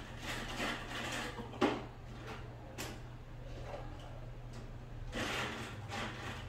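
Soft rustling and a few light knocks from a cat moving on a wooden table, with a louder scuffle about five seconds in as it jumps down.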